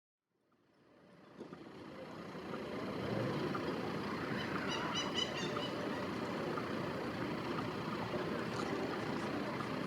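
Steady vehicle rumble fading in over the first two or three seconds, then holding even. A short, quick run of high chirps comes about five seconds in.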